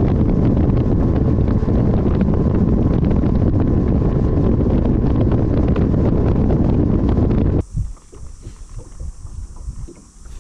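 Bass boat running across open water at speed: loud rushing wind on the microphone over the boat's engine and hull noise. About three-quarters through it cuts off abruptly to a much quieter stretch with soft low knocks.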